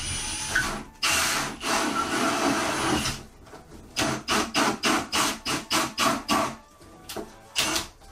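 Milwaukee Fuel cordless drill with a 32 mm hole saw cutting through a stack of trading cards into a cardboard box. It runs in one continuous cut of about two seconds, then in a run of short bursts at about four a second, and once more near the end.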